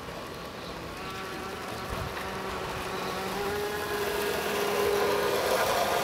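A balsa RC speedboat running flat out on the water, its 3300kv brushless inrunner motor and propeller giving a high, buzzing whine. The whine grows louder over the last few seconds as the boat comes close.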